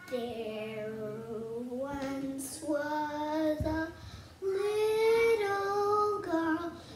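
A child singing a slow tune unaccompanied, in long held notes, with a short break a little past halfway.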